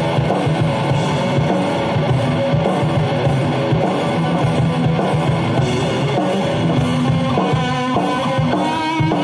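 Kramer Assault 220 electric guitar playing a fast rock/metal part over a drum backing. Near the end it moves to held single lead notes.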